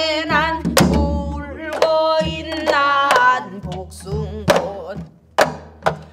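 A woman singing pansori in a wavering, sustained voice, accompanying herself on a janggu hourglass drum with several sharp stick strokes in the jungmori rhythm. The singing thins out in the last couple of seconds, leaving mostly the drum strokes.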